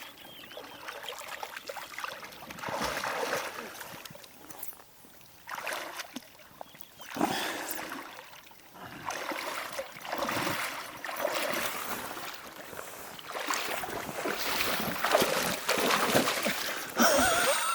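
Water splashing and lapping, coming in irregular rushes a second or two long.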